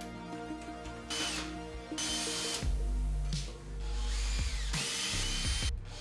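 Makita cordless drill/driver running in about five short bursts on the screws of a steel PC case, its motor whine rising as it spins up and falling as it stops, over background music.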